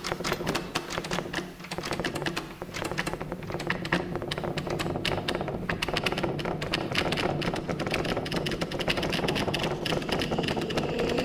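Rapid, irregular tapping on a laptop keyboard over a steady low hum.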